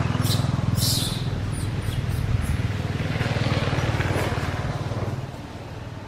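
A motor engine running steadily, then dropping away sharply about five seconds in, with a few short high-pitched sounds in the first second.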